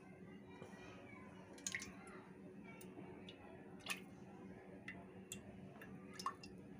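Cooking oil poured from a metal ladle into an aluminium pressure cooker: faint scattered drips and light clicks of the ladle against the pot, over a steady low hum.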